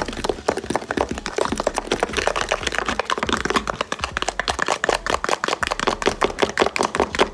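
Balsamic vinegar fizzing up with baking soda: a dense, rapid crackle of foam bubbles popping, which stops abruptly at the end.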